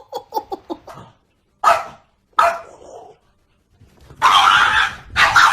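A dog barking: a quick run of short high yips, then two sharp barks, and two longer harsh ones near the end.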